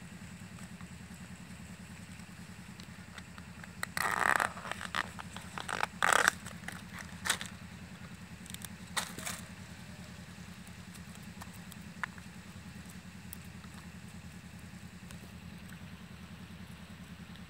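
Banana flower being stripped by hand: short crackling, scraping rustles as the bracts are pried off and the florets pulled out over a plastic sheet, loudest about 4 and 6 seconds in, with smaller ones near 7 and 9 seconds. A steady low mechanical hum runs underneath.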